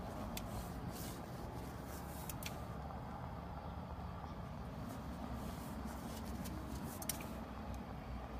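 Steady low rumble of motorway traffic, with a few faint clicks.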